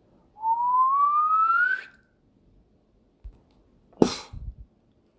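A single rising whistle lasting about a second and a half, then a short sharp noise about four seconds in.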